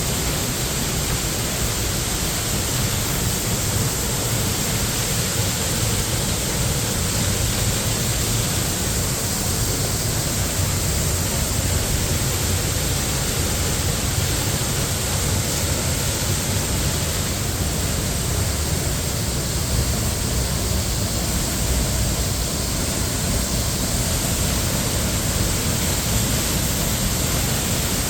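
Steady, continuous rush of falling and flowing water from Minnehaha Creek at Minnehaha Falls.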